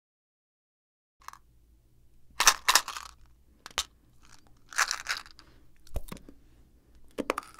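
Silence, then from about a second in a faint low hum with a series of short crunching noises and a few sharp clicks, the loudest about a third of the way in.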